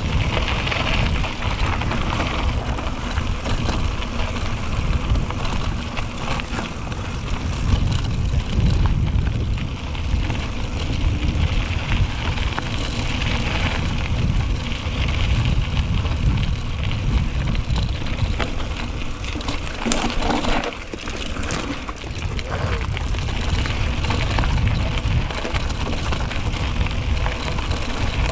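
Wind rumbling over an action camera's microphone as a mountain bike rolls downhill on a rough trail, with tyre noise and a few knocks about two-thirds through.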